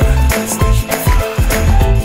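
Song with a steady drum beat and pitched instrumental notes, in an instrumental stretch with no singing.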